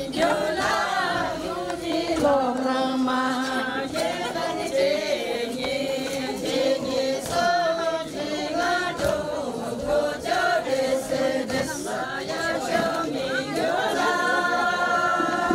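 A group of voices singing a Sherpa shyabru song together, with long held notes.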